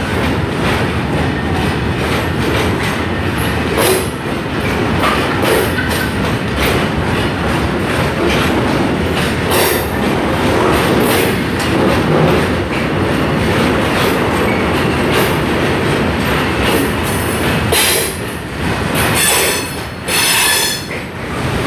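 A long freight train's wagons rolling past at low speed, wheels rumbling and clattering over the rails, with short high wheel squeals near the end.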